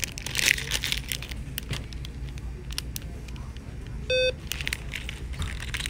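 Plastic LEGO polybag crinkling as it is handled, then a short electronic beep from a store price-check scanner about four seconds in as it reads the bag's barcode.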